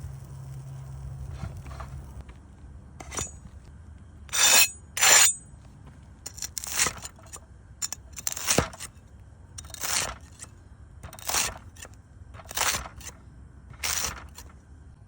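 Crisp crunching of a freshly toasted, crusty sandwich: two loud crunches close together, then one about every second and a half.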